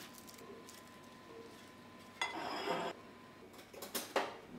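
Quiet kitchen handling sounds: a metal spatula scraping under a roasted cabbage wedge on a metal baking tray, then a few sharp clinks of utensils and dishware near the end.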